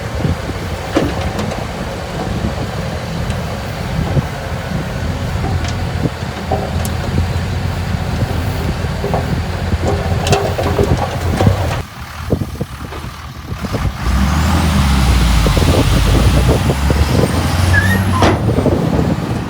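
Heavy diesel construction machinery running, with scattered metallic clanks. The sound dips briefly about twelve seconds in, then a louder engine comes in about fourteen seconds in, with a thin high whine wavering over it.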